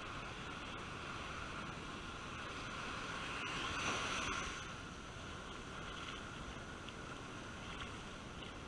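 Sea surf washing up the sand at the water's edge in a steady rush, swelling as a wave breaks close by about four seconds in, with wind noise on the microphone.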